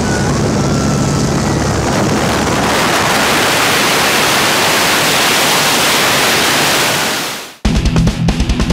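Jump plane's engine drone with wind rushing through the open door, giving way about two and a half seconds in to a louder, even wind rush on the microphone with no engine, the rush of freefall after exiting the aircraft. Near the end the wind fades out and heavy rock music with electric guitar cuts in.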